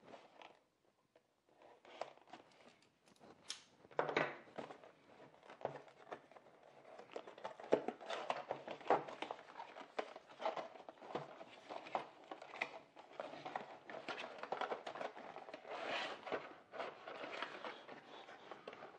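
Cardboard product packaging and a clear plastic blister tray being opened and handled: a run of irregular rustling, scraping and crinkling, with many small clicks and knocks against a wooden tabletop.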